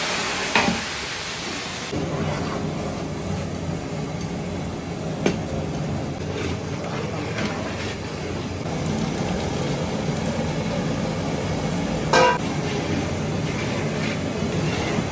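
Biryani masala of tomatoes and spices sizzling in a large aluminium degh while a long-handled ladle stirs it. A few short metal knocks of the ladle on the pot, the loudest about twelve seconds in.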